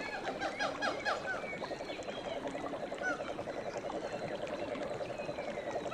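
River or stream water running, with many small birds chirping and calling over it, and a fast, low pulsing trill throughout.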